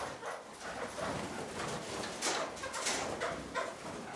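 Kakariki (New Zealand parakeets) giving short chattering calls while they feed, with a couple of short scratchy sounds about two to three seconds in.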